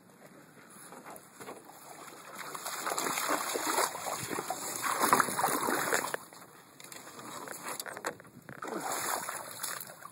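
Lake water splashing and sloshing in the shallows. It builds over a few seconds, cuts off suddenly about six seconds in, and swells again briefly near the end.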